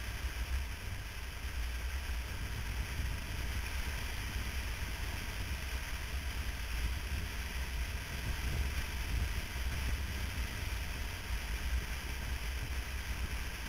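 Steady wind rush and low rumble on a motorcycle-mounted camera's microphone as the motorcycle rides at road speed.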